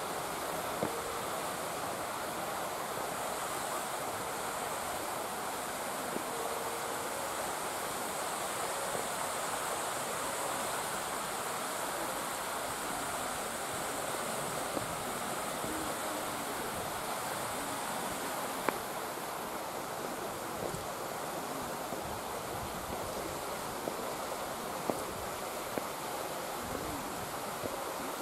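Steady outdoor background hiss with a few faint, sharp clicks.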